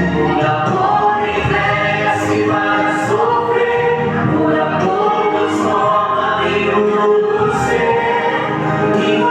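A choir singing a gospel worship song with musical accompaniment, held notes and a steady level.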